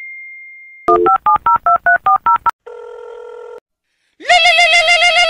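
Telephone call sound effect. The fading ring of a ding trails off, then about ten quick keypad beeps dial a number. A steady tone lasts about a second, and a loud warbling electronic phone ring starts near the end.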